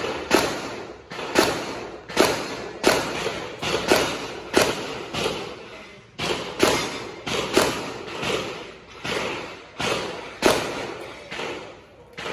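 A long, steady string of gunshots, about three every two seconds, each a sharp crack with a short echoing tail.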